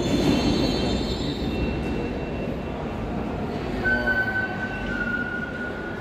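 Underground train running through the station: a steady low rumble, with high thin wheel squeal fading over the first second. A single steady high whine comes in about four seconds in.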